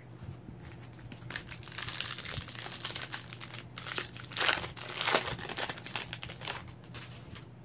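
Plastic trading-card pack wrapper being torn open and crinkled in the hands: a dense crackling rustle, loudest about four and a half and five seconds in.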